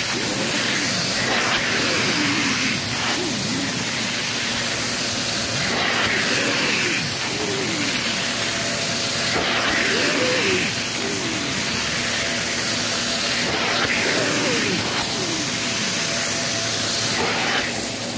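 Hot-water extraction hand tool spraying and vacuuming across fabric: a loud, steady rushing hiss of spray and suction. Over it, the suction's pitch rises and falls every one to three seconds as the tool's seal on the fabric changes.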